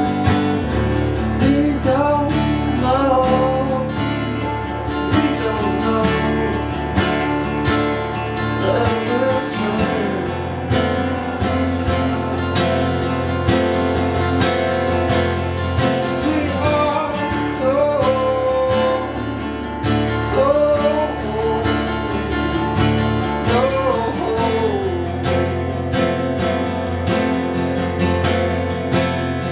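Two acoustic guitars played together, steady strummed chords with a wavering melody line rising above them in places.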